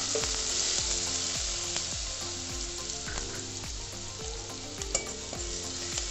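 Chopped onion with mustard and cumin seeds sizzling in hot oil in a metal pan while being stirred with a steel spoon, the sizzle slowly dying down. A couple of sharp clinks of the spoon on the pan near the end.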